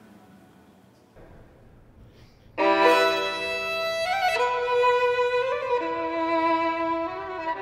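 Violin playing slow, sustained bowed notes, several pitches sounding together over a steady low note. It enters suddenly about two and a half seconds in, after a faint, near-quiet start.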